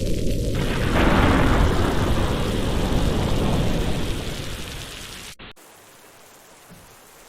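Heavy rain with a deep rumble of thunder that swells about a second in and dies away over the next few seconds. After a brief break about two-thirds of the way in, lighter, steady rain carries on much more quietly.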